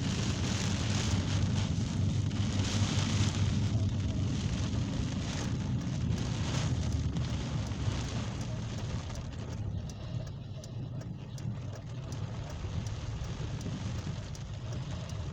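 Heavy rain falling hard during a severe thunderstorm, over a steady low rumble. The downpour eases somewhat after about nine seconds.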